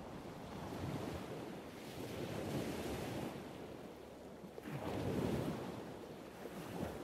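Ocean surf breaking in repeated rushing washes that swell and ebb, the loudest wave surging about five seconds in, with wind on the microphone.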